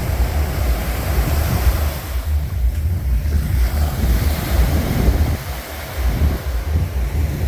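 Ocean surf washing on a beach, with wind buffeting the microphone in uneven low rumbles.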